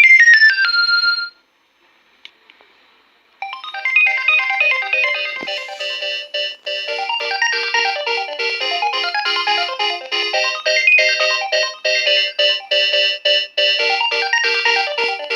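Nokia 2300 mobile phone playing its built-in ringtones: one melody finishes about a second in, then after a short pause with a faint click, another ringtone starts about three and a half seconds in, with several notes sounding at once, and keeps playing.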